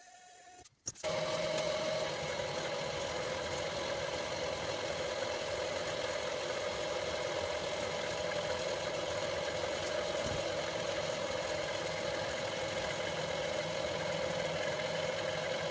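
Homemade milling machine running steadily as it mills a large part: a constant machine drone with a strong steady whine, starting suddenly about a second in.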